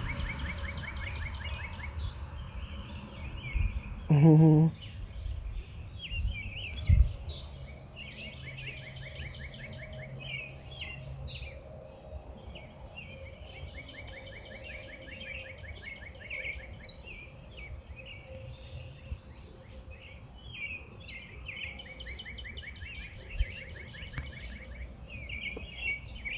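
Several birds chirping and singing, with repeated fast trills. About four seconds in comes a short, loud, wavering pitched sound, and near seven seconds a thump.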